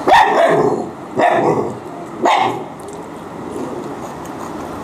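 A dog barking three times, about a second apart.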